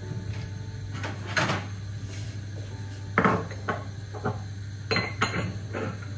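A kitchen cupboard door opening and closing, then small ceramic coffee cups and saucers set down on the countertop, with a series of knocks and clinks over a low steady hum.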